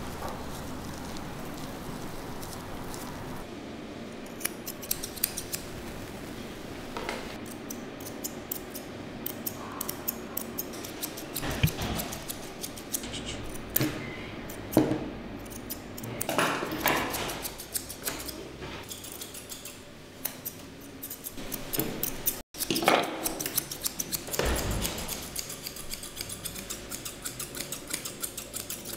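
Steel grooming scissors snipping through a Persian cat's long fur: many quick, sharp snips in close succession, with a few louder bumps between them.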